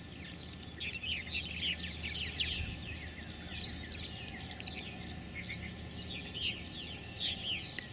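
Swallows, purple martins and tree swallows, chirping and twittering in a near-constant run of quick, high calls over a steady low background rumble.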